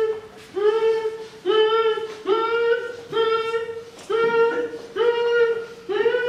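A person's voice repeating the same high-pitched held vocal call, about once a second, each call sliding up briefly and then holding one steady note: a sound cue for blindfolded players to walk towards.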